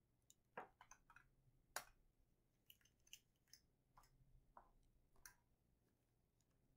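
Faint, irregular clicks and taps of a plastic monitor light bar and its clip being handled and fitted onto a computer monitor, quiet after about five and a half seconds.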